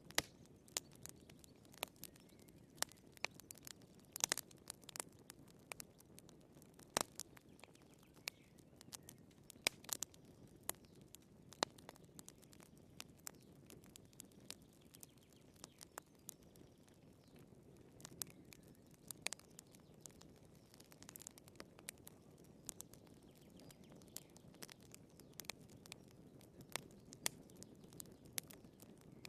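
Wood fire crackling in a fireplace: irregular sharp pops and snaps over a faint low hiss of burning logs.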